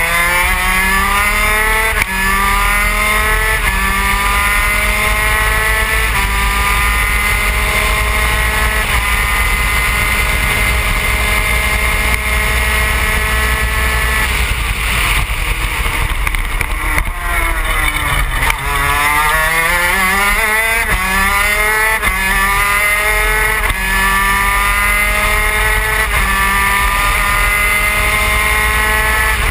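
Superkart's Yamaha TZ250 two-stroke twin racing engine at full throttle, its pitch climbing and dropping back with each of several quick upshifts, then holding high. A little over halfway the pitch falls steadily for about two seconds as the kart slows for a corner, then it climbs through the gears again.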